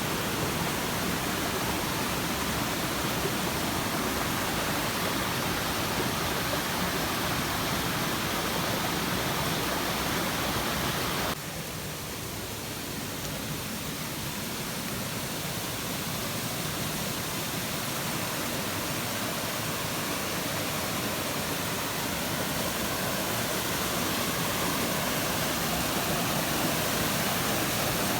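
Waterfall rushing, a steady full hiss of falling water. About eleven seconds in it suddenly drops a little quieter, then slowly grows louder again.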